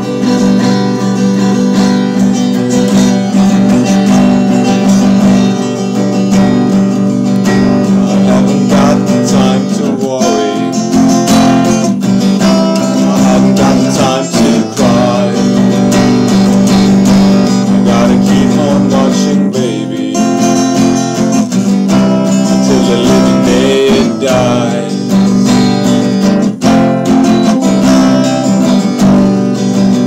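Acoustic guitar being strummed steadily, with a man singing along over it from about ten seconds in.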